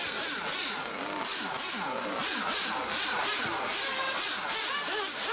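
Small glow-fuel engines of 1/8-scale radio-controlled racing cars running on the track, their buzzing pitch swinging up and down several times a second as they rev and pass.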